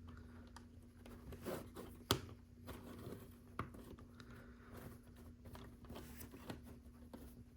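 Faint, scattered clicks and rustles of small plastic LEGO pieces being handled and pressed together, with the sharpest click about two seconds in.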